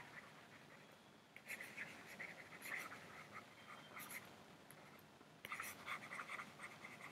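Faint scratching of a stylus on a tablet as words are handwritten, in two bouts of quick strokes separated by a short pause.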